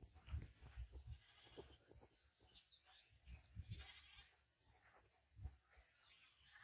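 Faint goat bleating: a few wavering calls about a second in and again around three to four seconds in, over scattered low thuds.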